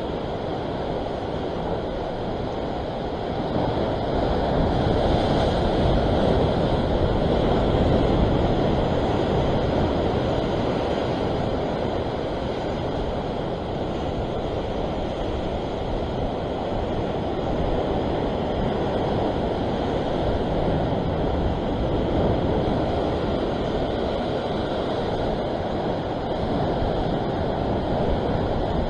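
Sea surf surging and washing against the rocks below, a steady rushing noise that swells louder for several seconds a few seconds in.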